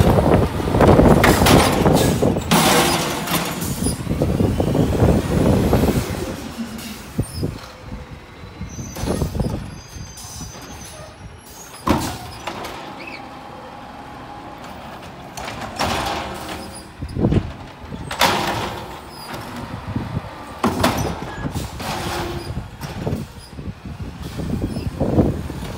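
Natural-gas automated side-loader garbage truck emptying residential carts. For about the first six seconds a loud rush and banging comes from the arm tipping a cart into the hopper. After that the truck runs more quietly, with scattered clanks and bangs from the arm and carts.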